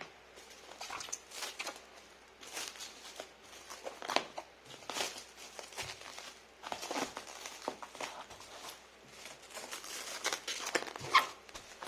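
Packaging material crinkling and rustling as it is handled, in irregular bursts, with one sharper click near the end.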